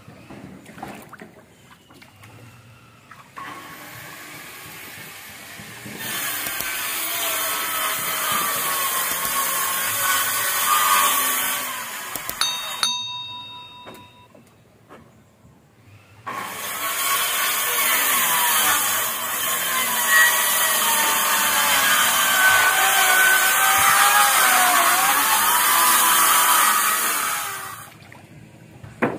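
Handheld electric circular saw cutting a wooden plank lengthwise, in two long runs of about ten seconds each, with the motor's pitch wavering under the load. Between the runs the saw briefly stops.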